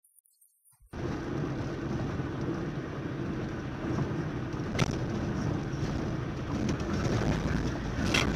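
Near silence for about a second, then the steady rumble of a car driving on a rough rural road, heard from inside the car, with a sharp knock about five seconds in and rougher, louder noise near the end.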